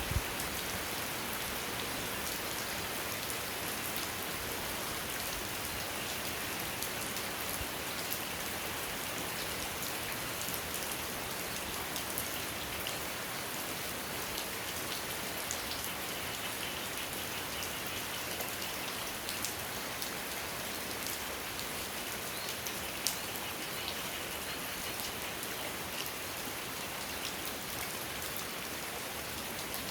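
Steady rainfall: an even hiss of rain with scattered individual drops ticking on a surface, and a sharper drop hit about 23 seconds in.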